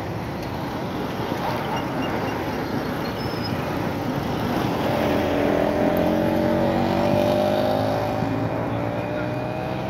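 Road traffic noise running steadily, with a vehicle passing about halfway through, its engine tone sliding slowly lower as it goes by.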